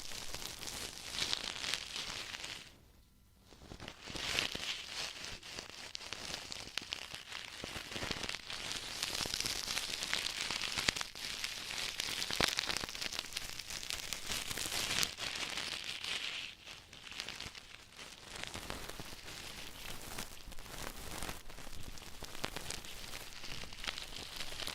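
Ear-cleaning tools scratching and rustling close against a microphone ear: a dense, crackly scraping with small clicks and a brief pause about three seconds in.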